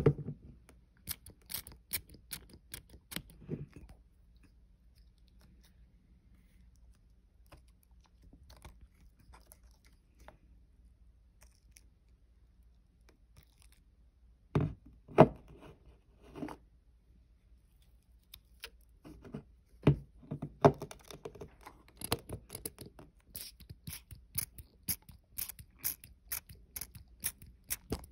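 Homemade glitter slime being pressed and poked with fingers, making sticky clicks and pops. It clicks in clusters near the start, gives a few loud pops about halfway through, and clicks densely through the last third, with a quiet stretch of several seconds in between.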